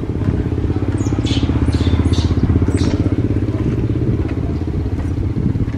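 An engine running steadily with a low, rapidly pulsing rumble. A few short high-pitched chirps sound over it between about one and three seconds in.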